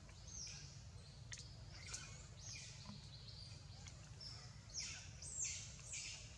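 Repeated high-pitched animal chirps, each a short falling squeak, coming several times a second and loudest near the end, over a low steady background rumble.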